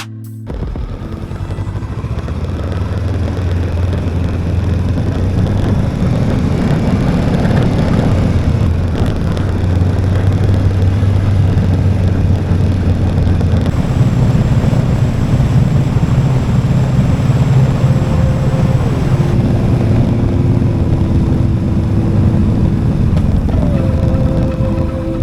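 Motorcycle engine running at a steady road speed under a constant rush of noise; its note steps up in pitch about halfway through.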